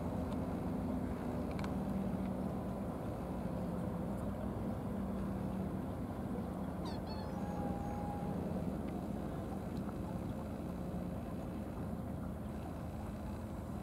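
Steady low engine drone with a wavering hum throughout. There are brief high chirps about seven seconds in.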